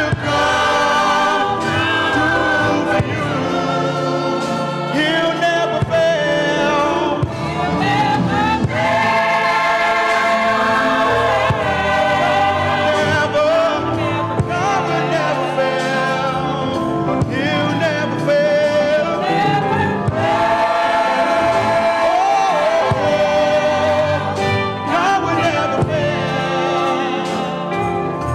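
Gospel choir singing in full voice, backed by steady low instrumental bass notes.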